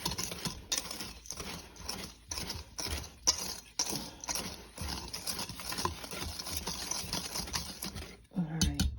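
Dry dishwasher-powder mix of citric acid and salt being stirred in a container, with a quick, irregular run of scraping and knocking strokes several times a second. Near the end there are a few sharper knocks and a short pitched sound.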